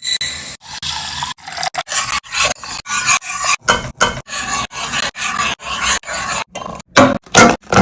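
Kitchen cooking sounds cut into many short pieces with abrupt gaps: mostly scraping and rasping, with a few sharp knocks near the end.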